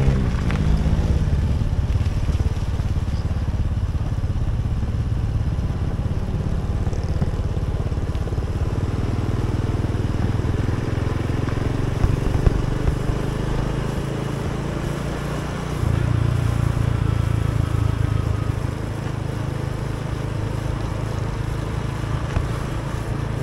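Motorcycle engine running steadily while riding, with a step up in the engine note about two-thirds of the way through.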